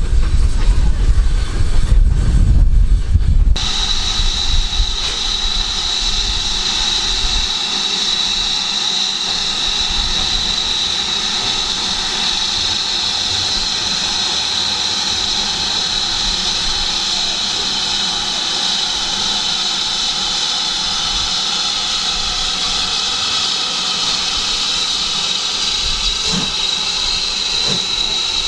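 Steam engine blowing off steam: a loud, steady hiss that holds unbroken for over twenty seconds. Before it, a low train rumble cuts off suddenly about three and a half seconds in.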